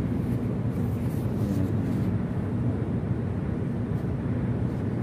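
Steady low rumbling room noise with no speech and no distinct events.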